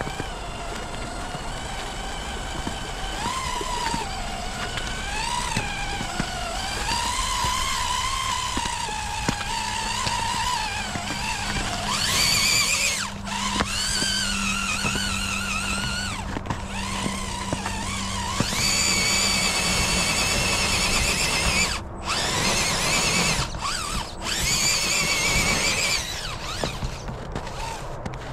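Electric motor and gear drivetrain of an RC4WD Bully 2 radio-controlled rock crawler whining, its pitch rising and falling with the throttle. It runs louder and higher in long pushes in the second half, then stops and starts abruptly several times near the end.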